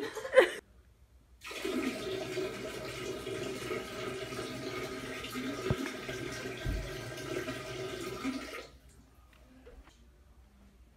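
A brief loud noise right at the start, then a toilet flushing: a steady rush of water for about seven seconds that stops suddenly.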